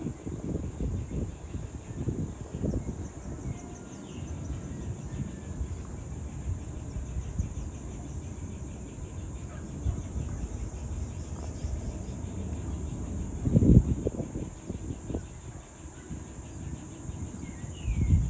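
Wind gusting across the microphone in uneven low rumbles, with strong gusts about two-thirds of the way through and again at the very end. Behind it a steady high-pitched insect chorus keeps going.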